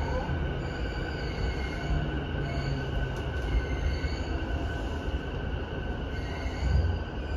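Cabin running sound of an E233-7000 series electric commuter train: rumble of the wheels on the rails with a steady whine from its Mitsubishi IGBT VVVF inverter and traction motors.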